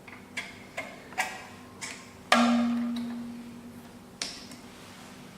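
Clicks and knocks of parts being handled and seated on a key cutting machine: four light clicks in the first two seconds, then a louder metallic knock that rings on and fades, and one more click near the end.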